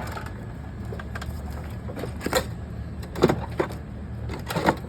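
Cardboard baler running with a steady low machine hum, with several sharp metal clanks; the loudest comes about three seconds in and more follow near the end.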